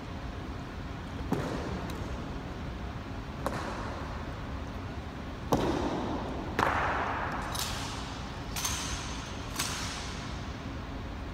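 An honour guard's drill on a stone floor: a few sharp stamps and clacks from boot heels and rifle that ring through the large hall, then three brighter metallic clicks about a second apart.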